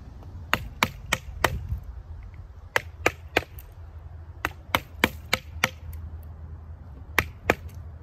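Fixed-blade knife chopping into the end of a wooden stick laid across a log: sharp single chops in short runs of two to five, about three a second, with pauses between the runs.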